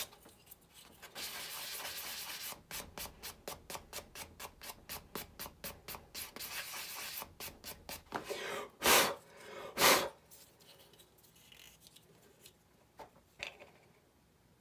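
Small 3D-printed plastic part being sanded by hand on a sanding block, rubbed in quick back-and-forth strokes of about four a second. The sanding stops, two loud short bursts of noise follow about a second apart, and then there are a few light plastic clicks as the part is handled.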